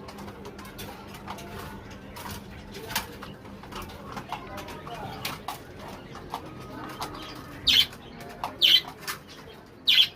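Pigeons moving about, with wings flapping and soft cooing, and scattered clicks and rustles. Three brief, louder rushing bursts come near the end.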